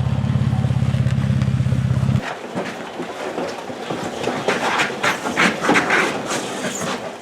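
Riding lawn mower's small engine idling with an even pulsing beat, then cutting off abruptly about two seconds in. After it come scattered clicks and rattles.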